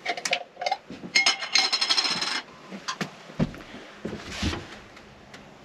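Kitchen clatter: metal utensils clicking, clinking and scraping against crockery, with a dense run of metallic rattling from about one to two and a half seconds in. After that, quieter handling noise with a soft swell near the end.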